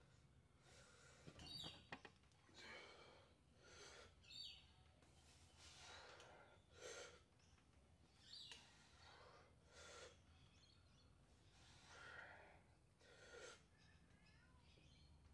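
Faint, heavy breathing of a lifter straining through a heavy barbell bench-press set, a breath every second or two, with a few faint bird chirps.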